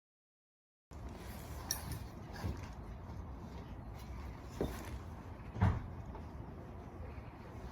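Steady low background rumble, with a few scattered soft knocks and clicks; the loudest knock comes about five and a half seconds in. The sound begins abruptly about a second in, after dead silence.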